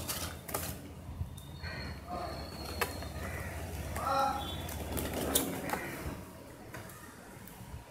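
Hands rustling plastic wrapping and handling a total station in its foam-lined case: crinkling and scattered sharp clicks over a low steady hum that fades out about five seconds in.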